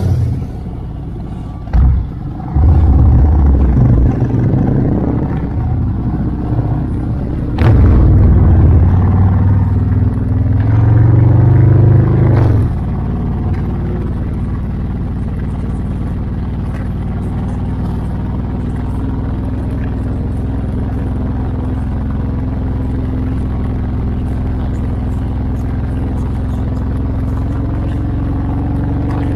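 Motorcycle engine pulling away from a stop and accelerating hard through the gears, with short dips in sound at the gear changes, then settling into a steady cruise a little under halfway through.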